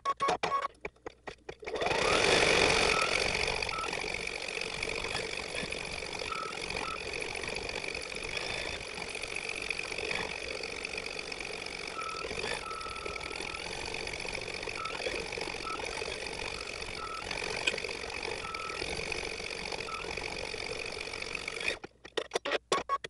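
Embroidery machine stitching out a design, played back at three times speed so the needle strokes run together into a steady whir. Near the start and again near the end the sound turns choppy, pulsing rapidly.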